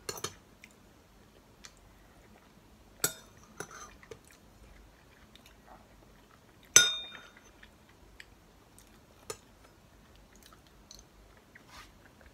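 Metal spoon clinking against a ceramic soup bowl while eating: a few sharp ringing clinks, the loudest about seven seconds in, with fainter taps between.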